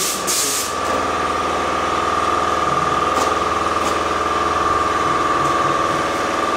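Air compressor running steadily with a constant whine. A spray gun gives a short hiss of air right at the start and two faint brief hisses around three and four seconds in.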